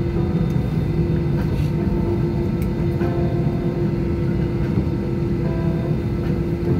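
Cabin noise inside an Airbus A320 as it taxis, with its CFM56-5B engines at idle: a steady hum over a continuous low rumble.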